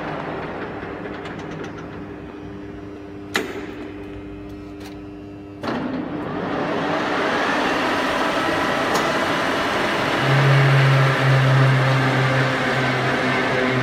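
Collet BFf100 horizontal boring machine's drive running: a steady machine sound slowly dies away, with a sharp click about three seconds in. Just before six seconds there is a clunk, then the drive runs up to a steady whirring run. A deeper, louder hum joins after about ten seconds.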